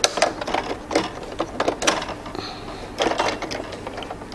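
Irregular clicks and plastic-and-metal handling on a sewing machine as a snap-on presser foot is taken off and a flat foot is fitted in its place.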